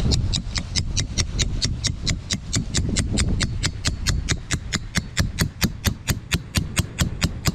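Steel yard stake being hammered into the ground: a rapid, steady run of sharp strikes, about four to five a second.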